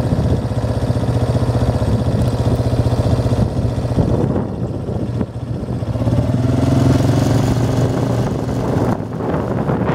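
Vehicle engine running steadily while driving along a gravel road; a little past the middle its pitch rises briefly and then eases back.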